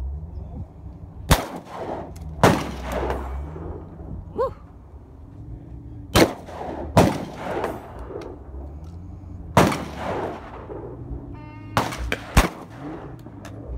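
Shotguns firing at clay targets: about six loud blasts at irregular intervals, each with a ringing echo tail, plus a quick pair of lighter shots just before the last loud one.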